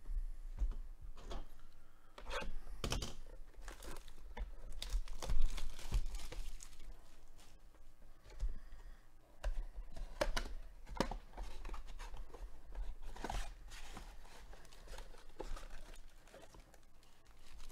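A 2021 Topps Holiday Mega Box of baseball cards being torn open by hand: irregular tearing and crinkling of cardboard and wrapping, with handling scrapes and rustles. The sharpest rip comes about five and a half seconds in.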